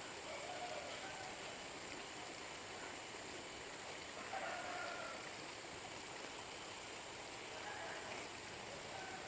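Steady soft hiss of light rain starting to fall, mixed with wind, with a few faint short pitched sounds now and then.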